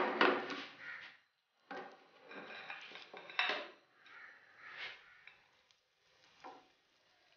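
A metal spatula and frying pan clattering and scraping in several separate knocks, loudest at the start, with oil sizzling as a potato patty is laid into the shallow oil.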